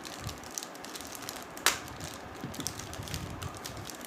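Hands opening the packaging of a new pair of kartal cymbals: irregular rustling, crinkling and small clicks of wrapping being pulled open, with one sharp, louder click a little under two seconds in.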